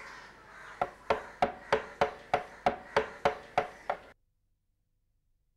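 A carving chisel is being struck into wood in an even run of sharp blows, about three a second, each with a short ring. The blows stop suddenly about four seconds in, and silence follows.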